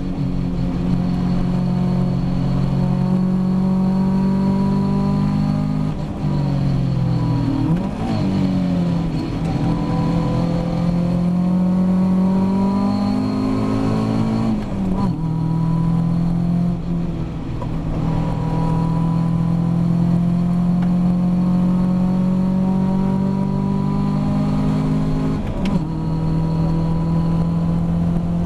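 Ginetta G40 race car's 1.8-litre four-cylinder engine heard from inside the cockpit at racing revs. Pitch drops with gear changes around 6 and 8 seconds in, climbs steadily, breaks at an upshift about halfway, then pulls again with another shift near the end.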